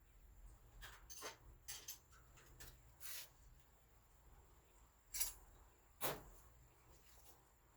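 A few scattered metal clicks and clinks of hand tools being handled, the loudest two about five and six seconds in, with quiet in between.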